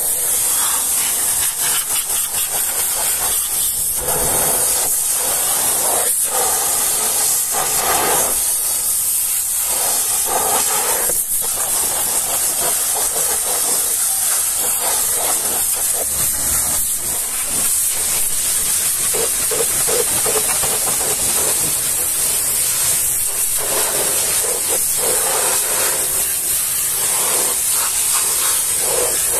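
Pressure-washer lance spraying a high-pressure water jet onto a truck's steel wheel rim and tyre: a steady loud hiss, its splatter changing in tone as the jet moves over rim, tyre and wet ground.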